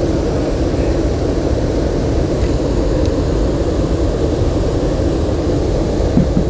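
Steady low rumbling noise, with two short knocks about six seconds in.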